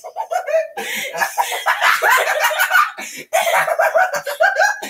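Children laughing hard and loudly in high-pitched, breathless fits, with short breaks about a second in and again past three seconds.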